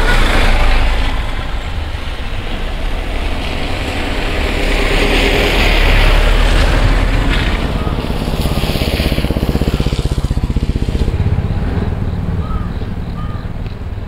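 Motor vehicle engines running close by in stalled road traffic, a steady low rumble with a hiss that swells and fades partway through.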